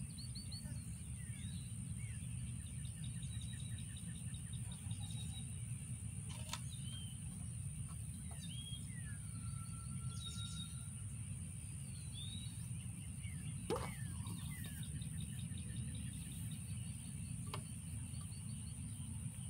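Outdoor ambience of several birds chirping and trilling over a steady low rumble and a steady high-pitched tone. A few sharp knocks break in, the loudest about two-thirds of the way through.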